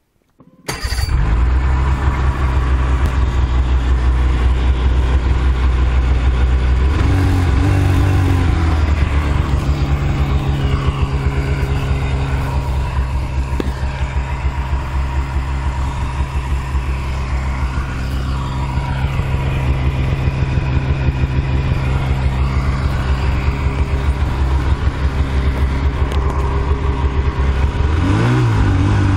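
Car engine cold-starting: it fires suddenly about half a second in and settles into a loud, steady idle, with brief rises in engine speed about a quarter of the way through and again near the end.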